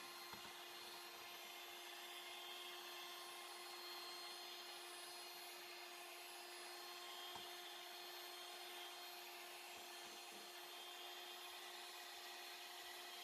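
Electric hand mixer running faintly and steadily at one speed, its beaters whipping toothpaste and water into foam in a stainless steel bowl.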